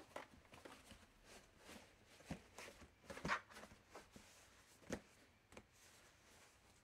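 Laundry basket being handled: scattered knocks, creaks and rustles. The sharpest knocks come a little after two, three and five seconds in.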